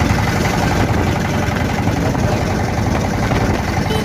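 An engine running steadily at an even speed, with a dense rushing noise over it.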